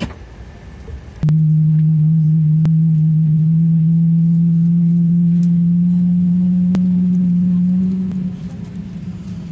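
Loud, steady low hum of a Boeing 777's onboard machinery, heard from the cabin at the gate. It switches on suddenly about a second in, its pitch creeps slightly upward, and it eases off near the end.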